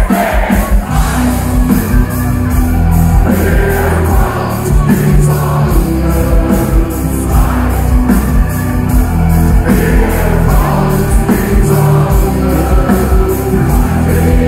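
Live heavy-metal band playing an instrumental passage at full volume: distorted guitars and bass chugging over a steady drum beat.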